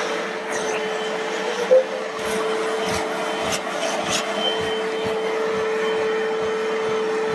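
Bissell Little Green portable carpet cleaner running, its motor giving a steady hum and a rush of suction as the hand tool's nozzle is drawn over carpet.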